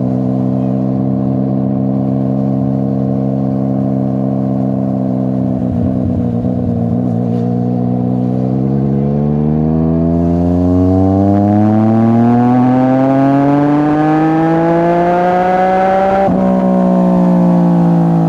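Yamaha MT-09's CP3 three-cylinder engine through a full Akrapovič exhaust, ridden at steady revs at first, then pulling hard with the engine note rising steadily for several seconds. Near the end there is an upshift: the pitch drops suddenly and then eases off.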